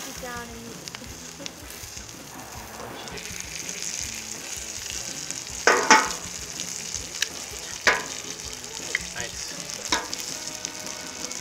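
Hot dogs, corn on the cob and sliced onions sizzling steadily on a hot flat-top griddle. Metal utensils clink and scrape against the steel plate a few times, loudest about six and eight seconds in.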